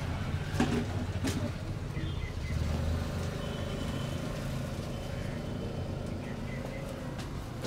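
A low steady rumble, with two short sharp clicks about half a second and just over a second in, and a faint steady tone through the middle.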